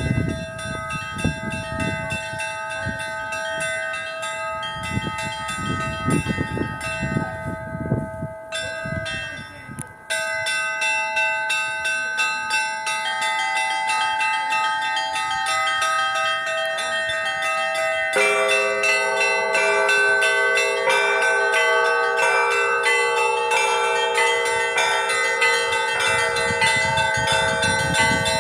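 Orthodox cathedral bells of the Dormition Cathedral ringing, several bells of different pitches sounding together in repeated strikes. After a brief dip about ten seconds in, more and lower bells join about two-thirds of the way through and the peal grows fuller and louder. A low rumble lies under the bells in roughly the first third and again near the end.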